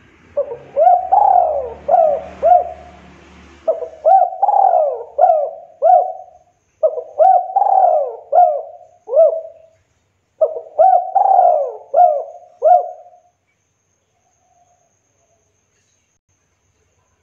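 Spotted dove (tekukur) cooing in four phrases, each a quick run of short hooked coos, and falling silent about 13 seconds in.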